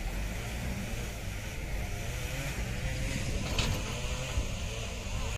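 Heavy diesel engine running steadily with a low rumble.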